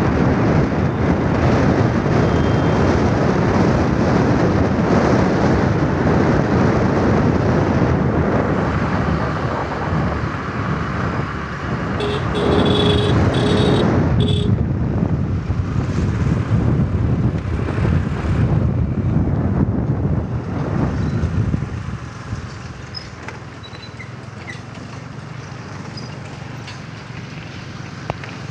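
Steady road and engine noise with wind rumble from a petrol vehicle on the move. A horn sounds in a few short beeps about twelve seconds in, and the noise eases off about three-quarters of the way through.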